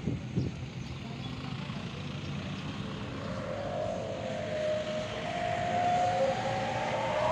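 Outdoor road traffic: a motor vehicle approaching and getting louder, with a whine that rises slowly in pitch from about halfway through.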